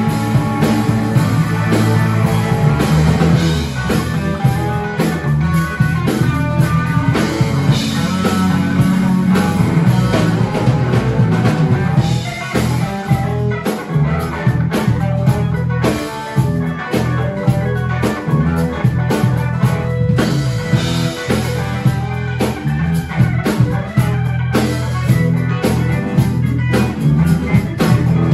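A blues band playing live: electric guitar, bass guitar, drum kit and keyboards, at a steady full level.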